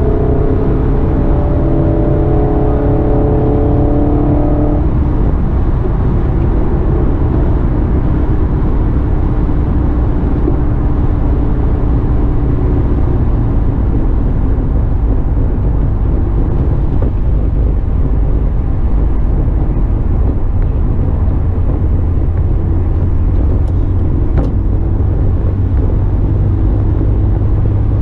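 Honda S2000's four-cylinder engine running at steady freeway speed, heard inside the open-topped cabin together with tyre and wind noise. A set of steady engine tones fades about five seconds in, leaving mostly steady road noise, and a lower engine tone comes back near the end.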